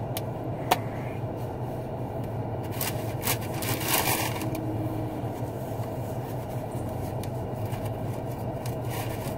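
Steady low hum of a running car heard inside its cabin. A sharp click comes just under a second in, and a short rustle of handling comes around four seconds in.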